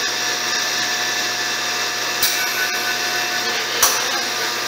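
Steady noise of a plant growth chamber's fans and climate unit running with its door open, with a faint steady tone under it. Two sharp clicks sound, about two seconds in and again just before four seconds.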